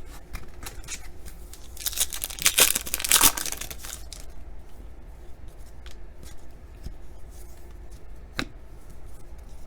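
A foil trading-card pack wrapper being torn open, a loud rasping tear lasting about two seconds, with light clicks and rustles of cards being handled before and after.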